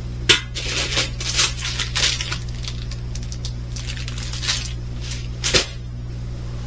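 Crinkly plastic packaging of a diamond painting kit rustling and crackling irregularly as it is handled and opened, with the sharpest crackles just after the start and about five and a half seconds in. A steady low hum runs underneath.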